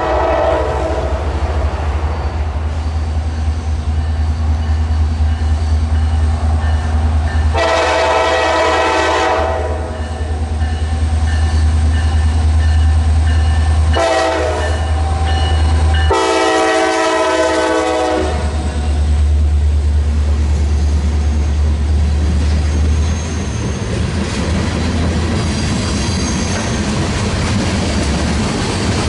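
Diesel freight locomotive running with a steady low rumble, sounding its multi-chime air horn: the tail of a blast at the start, a long blast about eight seconds in, a short one around fourteen seconds and another long one about two seconds later. This is the long-long-short-long grade-crossing signal. Wheels clatter over the rails beneath.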